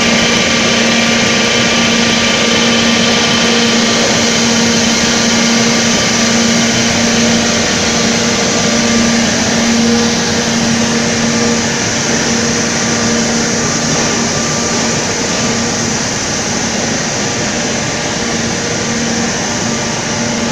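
Steady, loud drone of industrial blowers and machinery feeding the pulverized-coal burners of a coal-fired drying furnace, with a constant low hum.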